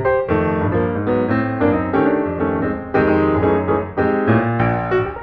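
Background piano music, a brisk run of many short notes.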